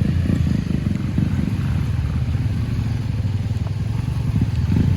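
Motorcycle engine running steadily with a low, pulsing rumble.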